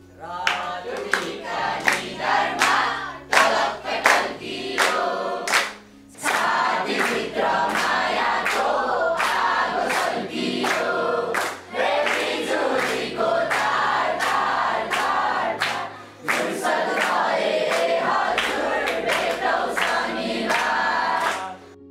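A group of children singing a song together, with a sharp beat, over a backing music track with a bass line that changes note every second or two.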